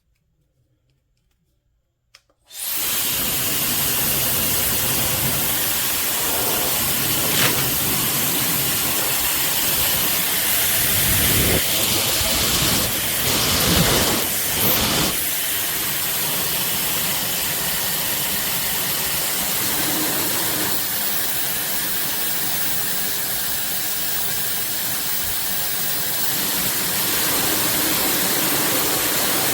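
A hair dryer switched on about two and a half seconds in, blowing with a steady, loud hiss of rushing air that swells briefly a few times around the middle, then switched off just before the end.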